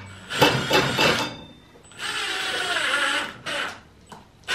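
Cordless drill driving screws through a metal joining plate into white IKEA shelving units. A few short bursts of the motor come first, then a longer run of about a second whose pitch drops, then a couple more short bursts near the end.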